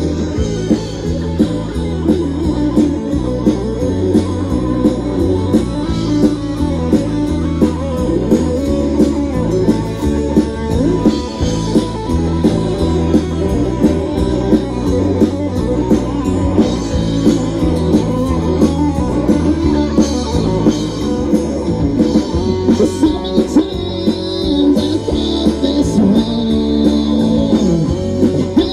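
Live band playing a song with a steady beat: electric guitars over a drum kit and bass.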